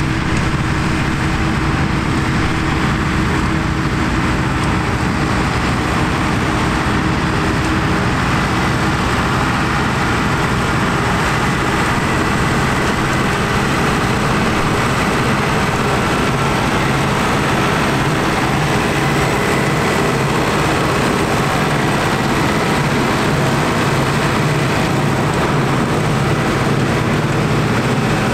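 Ford tractor's diesel engine running steadily under load, driving a trailed forage harvester that chops grass and blows it up the spout into a silage trailer; a constant drone of engine and machinery, with a faint high whine.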